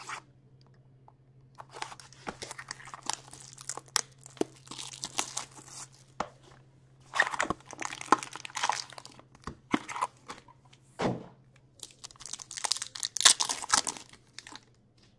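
Cellophane wrap being torn off a sealed hockey card box, then foil card packs crinkling as they are lifted out and handled. Spells of crinkling and tearing come with short quiet gaps between them.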